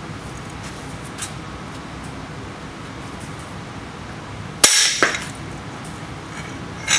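A long-handled ratchet straining on an engine's front pulley bolt gives way with one loud, sharp metallic crack about two-thirds of the way through, followed by a brief rattle. The mechanics take it for the ratchet breaking rather than the bolt coming loose.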